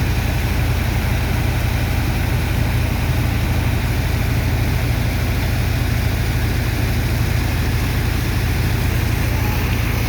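Sand dredger's engine and water pump running steadily under load: a deep, even drone with a constant hiss over it.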